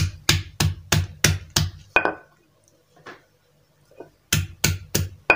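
Stone pestle pounding a lemongrass stalk against a stone mortar to bruise it. It gives a run of six sharp thuds about three a second, a lighter knock, a pause, then three or four more thuds near the end.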